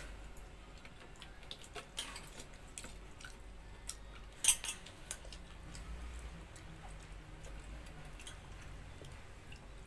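Eating by hand: soft chewing and small wet mouth clicks, then fingers stirring watered rice in a steel bowl near the end. A sharp click about four and a half seconds in is the loudest sound.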